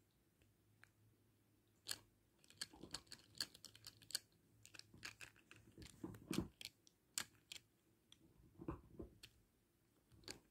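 Irregular small clicks and crackles close to the microphone, starting about two seconds in, thickest for the next five seconds and then a few more near the end.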